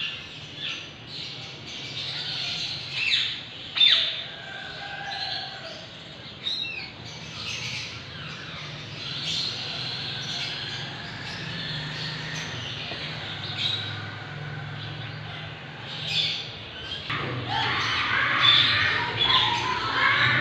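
Birds chirping and squawking, many short high calls scattered over a steady low hum, the calls growing busier near the end.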